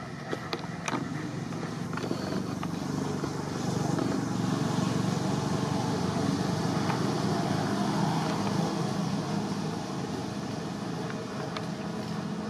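A motor vehicle's engine hum, growing louder a few seconds in and easing off near the end, with a few faint clicks in the first two seconds.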